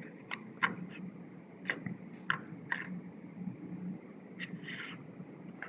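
Plastic air-conditioner remote control being handled: scattered light clicks and scrapes, a few seconds apart.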